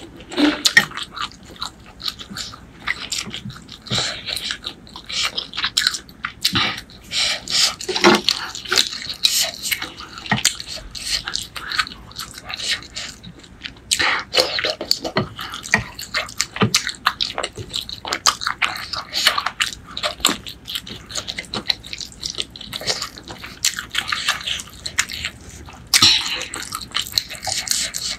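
Close-miked wet chewing and slurping of pork noodle soup: rapid irregular mouth clicks and smacks, with a longer slurp near the end.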